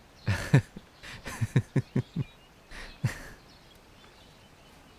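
A person's short wordless voice sounds: a breath about half a second in, then a quick run of about five short pulses, then one more near three seconds. Faint birdsong sits behind them.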